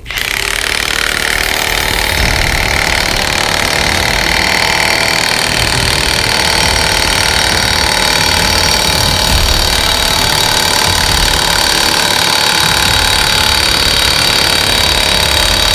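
Milwaukee 2767 M18 high-torque cordless impact wrench, set to mode 3, hammering continuously without letup as it drives an exhaust pipe stretcher against a stainless steel pipe. It starts right on the count and holds a steady, loud rattle.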